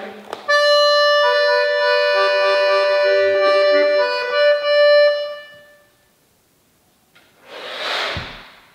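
Small button accordion playing a short passage of sustained chords over one high held note, stopping about five and a half seconds in. Near the end comes a single short, breathy rush of noise.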